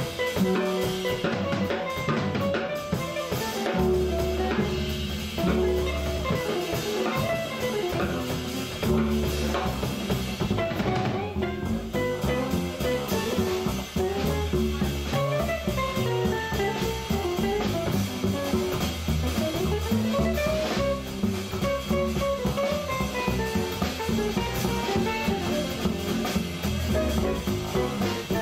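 Live jazz: an Ibanez hollow-body electric guitar plays a flowing melodic line over upright bass and drum kit with steady cymbals.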